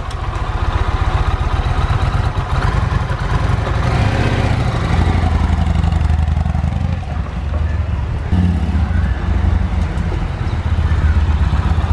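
Yamaha MT-01's big air-cooled V-twin running with a dense low firing pulse, revving as it pulls away in gear about four seconds in, dipping slightly near seven seconds and louder again as it comes back. The bike is under way on a freshly rebuilt hydraulic clutch that now engages gears.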